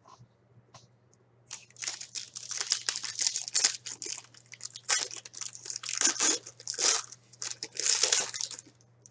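Packaging crinkling and rustling in the hands in irregular crackly bursts as sports cards are unwrapped and handled, starting about a second and a half in and stopping just before the end.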